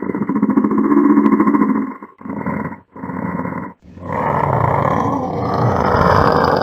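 Cat-monster growl sound effect: a deep, rough growl in bursts, first about two seconds long, then two short ones, then from about four seconds in a longer, harsher growl with a hiss in it.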